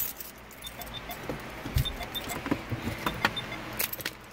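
Car keys on a key ring jingling and clicking, with short metallic pings. One dull knock comes about two seconds in.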